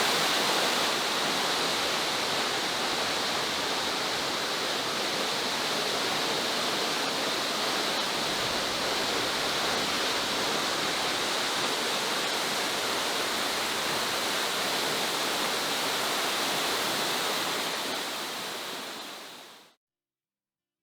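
Waterfall's steady rush of falling water, fading out near the end to silence.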